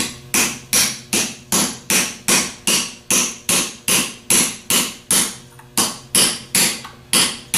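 Hammer blows on a 13/16 socket in a steady run of about two and a half strikes a second, driving a new bushing into the lever housing of a Delco 37MT truck starter.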